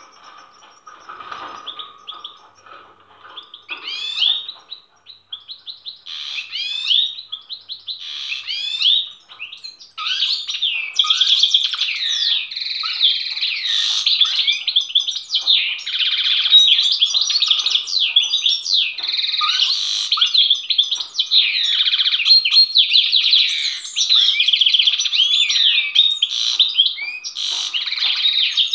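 European goldfinch singing in a cage: a fast, tinkling twitter of rapid gliding notes. It comes in short phrases at first, then runs nearly unbroken from about ten seconds in. The song comes from a goldfinch pair being readied for breeding.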